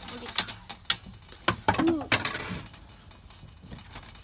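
Metal parts of a Captain Stag camp grill stove clinking and knocking as they are handled and fitted together, about five sharp knocks in the first two seconds, then quieter handling.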